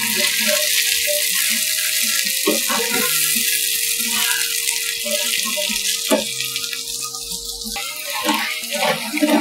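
Chana dal, urad dal and mustard seeds sizzling with a steady hiss in hot butter and oil as a tempering fries and is stirred, with a couple of sharp ticks.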